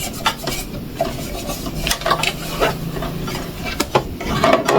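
Cloth rubbing over the plastic of a Roomba charging dock as it is wiped and handled, with irregular small clicks and knocks.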